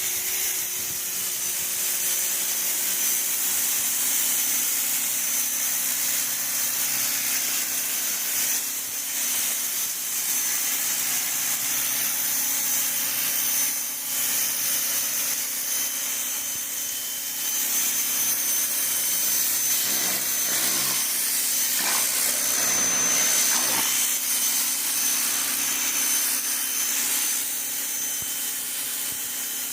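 Ryobi 2000 psi electric pressure washer running steadily, its motor and pump humming with a thin high whine under the hiss of the water jet spraying concrete.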